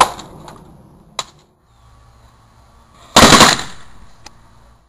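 A sharp smack at the start as a keyboard is struck, and a small click about a second later. About three seconds in comes the loudest sound, a half-second blast from a homemade pneumatic air cannon firing.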